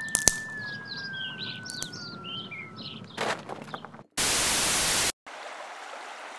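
Cartoon sound effects: a long whistle slowly sliding down in pitch, the classic falling sound, with birds chirping over it. Then a sharp hit, a loud burst of noise about a second long, and steady rushing river water.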